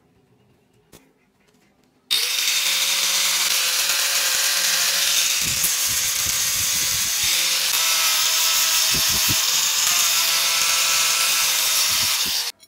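Angle grinder with an abrasive disc grinding steel, a loud steady hiss with a thin high whine. It starts suddenly about two seconds in and cuts off abruptly near the end.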